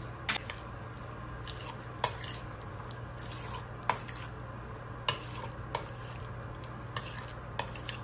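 A utensil clinking against a bowl, about seven sharp, irregular clicks, as cooked shrimp are mixed into a thick frying batter. A steady low hum runs underneath.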